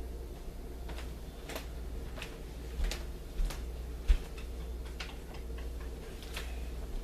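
Scattered light ticks and pops, irregular at one or two a second, from an egg omelet cooking in a small cast iron skillet over a homemade alcohol stove. A few dull low bumps come in as well, the loudest about four seconds in.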